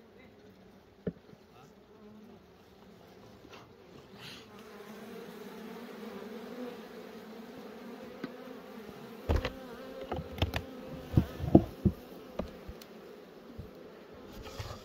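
Honeybees buzzing steadily around an open hive. A quick run of sharp knocks from hive equipment being handled comes about two-thirds of the way through, louder than the buzzing.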